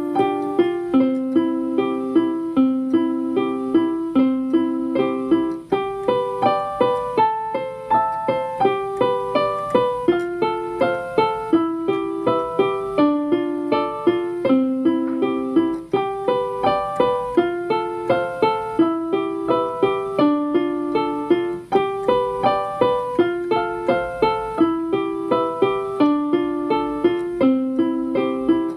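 Instrumental keyboard music: an electric piano plays a simple nursery-rhyme melody in a steady rhythm of about two notes a second, with brief breaks between phrases.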